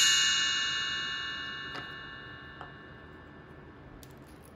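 A bright, many-toned chime, an edited-in transition sound effect, ringing out and fading away slowly. A few faint light clicks come from small wooden pieces being handled.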